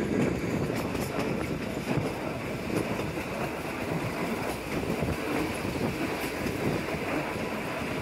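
Kalka–Shimla narrow-gauge toy train carriages running along the track, heard from the carriage's open window: a steady rumble with occasional faint clicks from the wheels.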